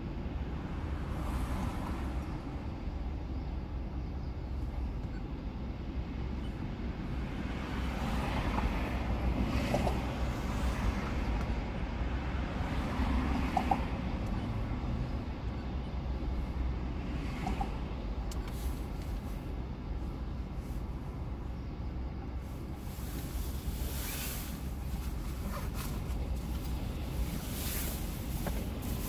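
Steady low rumble inside a car stopped in traffic, with the sound of other vehicles swelling and fading a few times.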